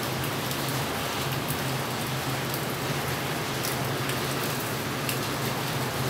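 Steady rain falling, an even hiss with scattered sharp drip ticks, over a steady low hum.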